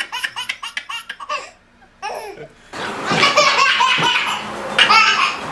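A baby belly-laughing in quick, rhythmic bursts, then after a short pause another baby laughing over a noisier background.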